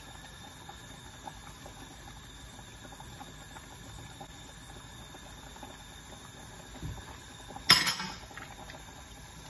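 Pot of meat stock boiling with a soft, steady bubbling, and one sharp clack about three-quarters of the way in as a spatula knocks against the heavy pot while stirring in palm oil.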